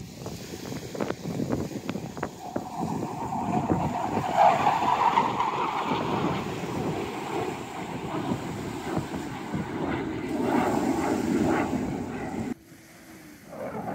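Distant jet aircraft noise swelling overhead, mixed with wind buffeting the microphone and waves lapping. The sound drops abruptly about a second before the end.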